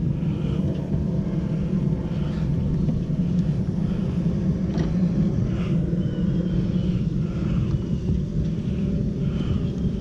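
Honeybees buzzing in a steady drone around an opened hive. A faint click is heard about five seconds in.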